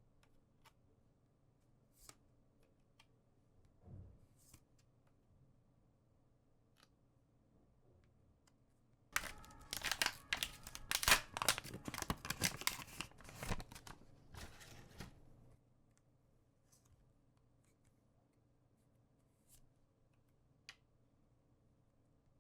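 A trading-card booster pack's wrapper being torn open and crinkled for about six seconds, starting about nine seconds in. A few light ticks and taps come before and after.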